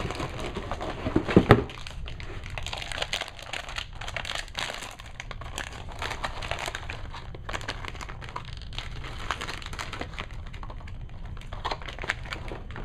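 Crinkling and tearing of a Heroclix figure pack's wrapping as it is opened by hand, with a few sharp, louder crackles about a second in.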